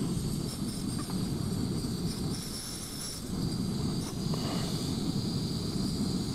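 Small screw-on gas canister camping stove burning with a steady roar under a pot of boiling water. The roar dips briefly about halfway through while the valve is being worked.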